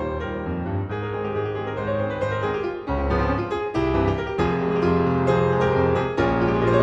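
Piano music: a melody of struck notes over low held notes.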